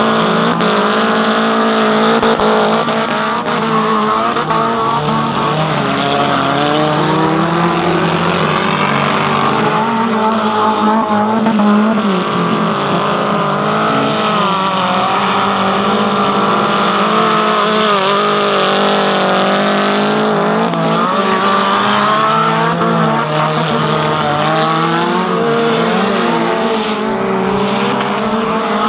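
Several wreck-race cars' engines running hard around a dirt track, their pitches rising and falling and overlapping as the drivers rev, lift and accelerate.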